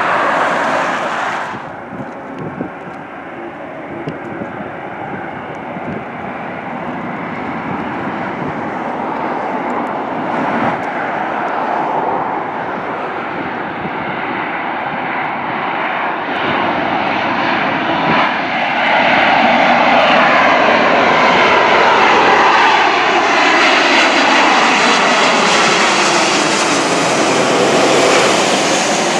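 A jet airliner's engines at takeoff power cut off suddenly within the first two seconds. Then an Air New Zealand Boeing 777's jet engines grow steadily louder as it comes in low overhead on final approach, with a whine falling in pitch near the end as it passes.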